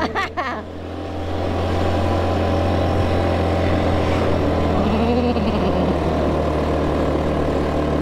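Motor vehicle engine running steadily while on the move, with road and wind noise; it dips briefly near the start, then builds back up and holds steady.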